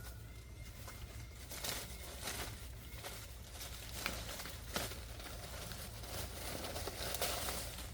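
Irregular rustling and crinkling with a few sharp clicks, over a steady low hum.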